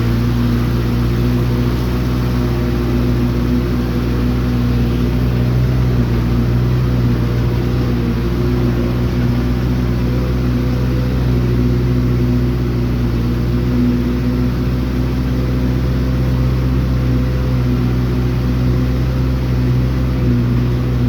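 Motor vehicle engine running at a steady speed while driving, with a constant low hum and road noise.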